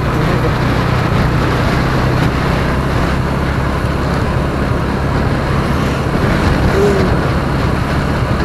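Motorcycle engine running at a steady speed on the move, with wind and road noise.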